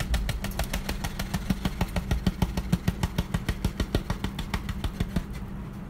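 Crumpled aluminium foil crackling in a fast, even rhythm of about ten rattles a second as it is shaken to tip burnt paper ash into a bowl. The rattling fades out a little before the end.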